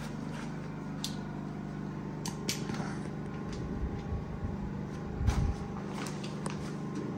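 Scattered light clicks and knocks of parts being handled around an open car hood, the loudest knock about five seconds in, over a steady low hum.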